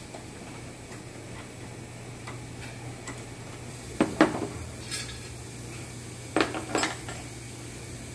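Metal handlebar parts clinking against each other as they are handled: a short cluster of ringing clinks about four seconds in and another about two seconds later.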